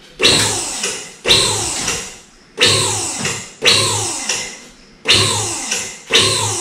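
Safety locks of a two-post car lift clanking as it raises a pickup, six sharp metallic clacks roughly a second apart, each ringing out and falling away before the next.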